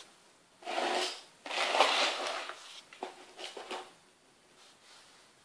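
Handling noise: two scraping, rustling spells of about a second each, then a few light clicks, and then it goes quiet.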